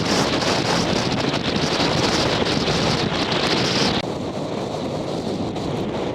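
Strong sea wind buffeting the microphone over the rush of ocean waves and surf. About four seconds in, the high hiss cuts off suddenly, leaving a lower, quieter rush.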